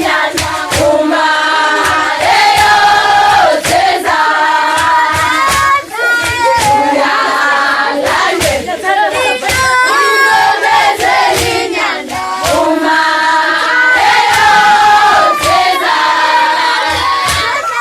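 A group of female voices singing a Zulu song together in harmony, with hand clapping throughout.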